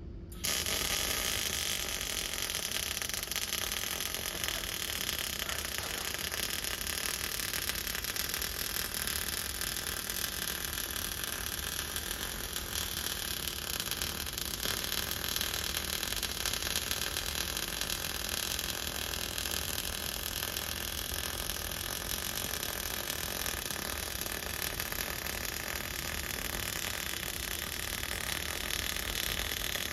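Automatic bore welder's MIG arc striking just after the start and then running continuously inside a worn pin bore, a steady crackle and hiss as it lays a build-up weld run. This run uses a longer contact tip and a better gas shroud after earlier runs came out badly porous, and it goes as it should.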